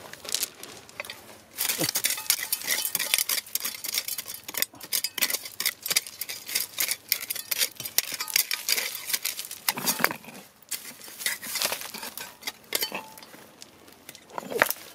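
A hand digging tool scraping and striking into stony, gravelly ground, making a dense run of clinks and scrapes of metal on rock and grit.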